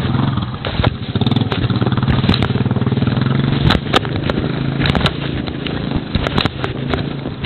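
A vehicle engine running steadily at low revs, with scattered clicks and knocks over it.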